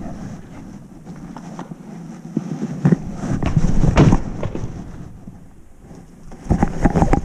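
Irregular knocks and crunches, the loudest clusters about three to four seconds in and again near the end, over a low rumble of wind on the microphone.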